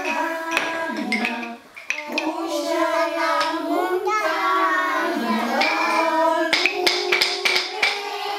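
Young children and an adult singing a children's song together, with wooden rhythm sticks clicking now and then.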